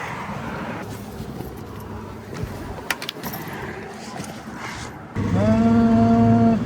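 A steady background hiss with a few clicks. About five seconds in, a machine starts with a short rising whine and settles into a loud, steady hum.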